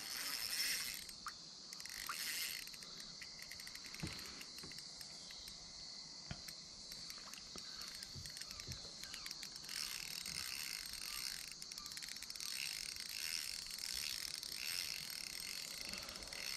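Crickets and other insects chirring steadily and faintly, with a few soft knocks in between.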